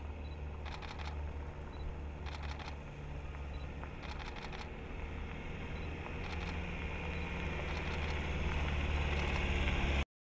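Jeep Renegade small SUV driving along a dirt road: a low steady hum with tyre noise that grows louder as it comes on, with a few faint clicks. The sound cuts off suddenly near the end.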